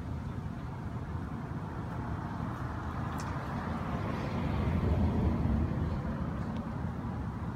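Low, steady rumble of motor traffic, with one vehicle passing that grows louder about halfway through and then fades.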